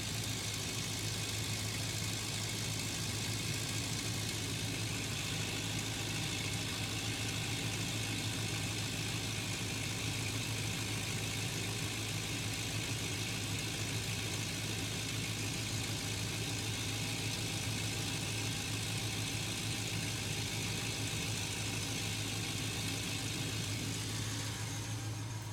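2003 Chevy Avalanche's V8 engine idling steadily, with a steady low hum and a hiss over it, running after the coolant line fitting repair so the cooling system can be topped off and checked for leaks.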